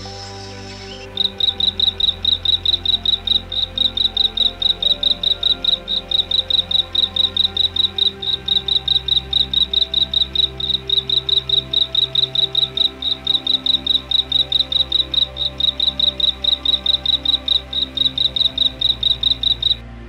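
A cricket chirping steadily, starting about a second in: an even run of high chirps, about four or five a second, over soft background music.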